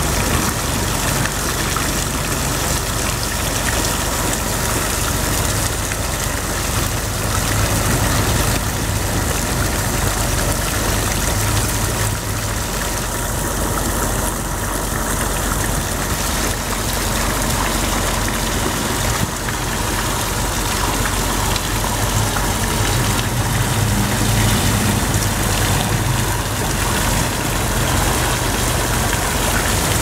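Park fountain running: its water jet, and water overflowing the basin rim, splash steadily into the pool below as a constant rushing hiss. A low hum sits underneath and grows louder at times.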